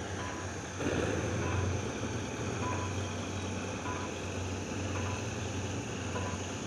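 Steady low engine rumble with faint, short electronic beeps about once a second, like a vehicle's warning alarm. A brief swell of noise about a second in.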